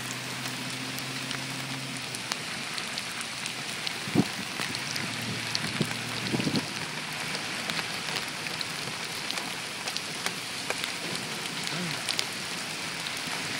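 Heavy rain falling on a car, heard from inside, with many small drop ticks over a steady hiss. A low hum stops about two seconds in, and there are a few dull knocks about four and six and a half seconds in.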